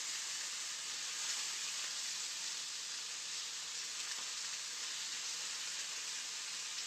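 Chicken pieces sizzling steadily as they fry and brown in a pan, an even hiss with no break.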